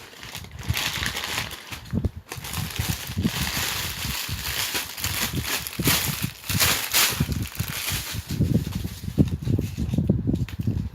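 Packaging being torn open and handled: irregular crackling, crinkling and tearing of paper or plastic wrapping, with short sharp rustles throughout.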